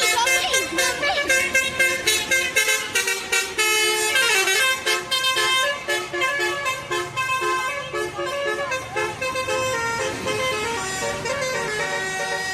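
Tour bus telolet horn, a set of musical air horns, playing a tune of stepped tones: quick repeated toots for the first few seconds, then longer held notes.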